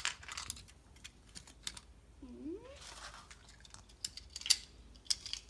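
Scattered sharp clicks and crackles of a large Kinder Egg being handled and opened: the foil wrapper, the chocolate shell and the plastic toy capsule. A short rising squeak comes about two seconds in.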